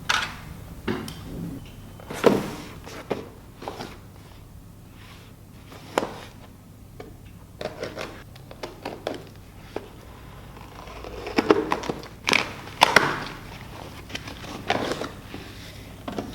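Parcels being handled and opened by hand: irregular knocks, thuds and short bursts of rustling packaging in a small room, busiest near the end.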